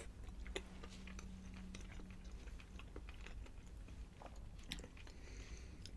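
A person quietly chewing a mouthful of pasta, with scattered faint wet mouth clicks.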